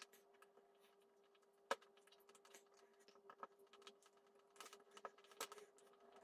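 Faint, scattered small clicks and taps as a mini hot glue gun is worked against a clear plastic egg-shaped shell: one sharp click about two seconds in, a few more a little later, and a quick cluster near the end, over a faint steady hum.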